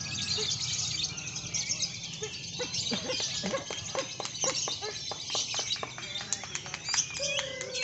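Many caged songbirds at a bird-singing contest chirping and trilling over one another in a dense, continuous chorus of short, high calls, with murmuring voices underneath.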